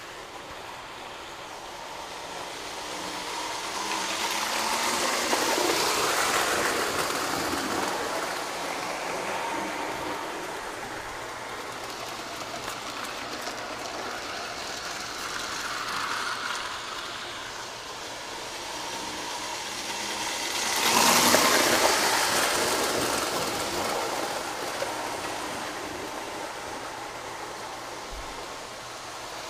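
Three-rail model trains running on metal track: a steady rolling rumble and clatter that swells as a train passes close by, about five seconds in and again, loudest, about twenty-one seconds in, then fades.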